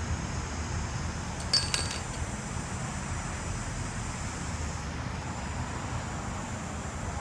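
Steady low background rumble, with a brief burst of metallic clinking about a second and a half in.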